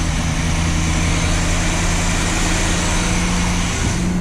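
Boat's inboard engine running steadily just after its first start in a long time, its note shifting briefly near the end.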